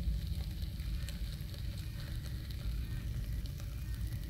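Bacon sizzling in a frying pan on a camp stove, with faint scattered crackles over a steady low rumble.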